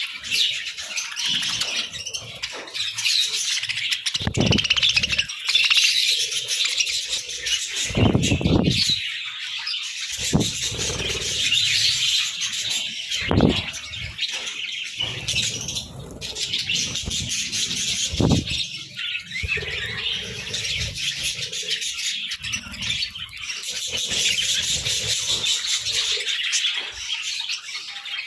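A flock of budgerigars chattering and chirping continuously, with a few short flutters or thumps among them.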